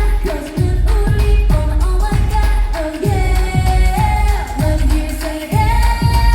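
K-pop song performed live through concert speakers: a female group's sung vocal lines over a deep electronic bass-drum beat whose kicks drop in pitch.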